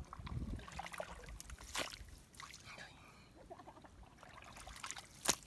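Shallow muddy water splashing and sloshing as bare legs and hands wade and grope through it, in irregular short splashes, with sharper ones about two seconds in and near the end.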